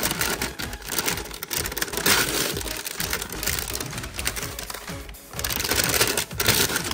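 Toy packaging being handled and opened: dense crackling and clicking of plastic and cardboard, loudest about two seconds in and again near the end, over background music.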